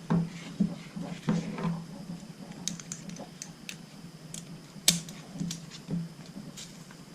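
Scattered clicks, taps and rustles of climbing-saddle hardware and webbing being handled, with one sharper click about five seconds in.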